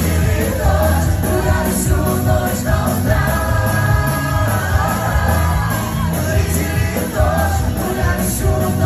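A live cover band playing an upbeat pop-rock song with singing over a steady drum beat.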